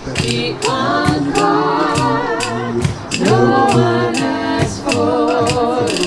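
A vocal improv group singing a cappella, several voices at once in improvised harmony, over a steady beat of sharp percussive hits.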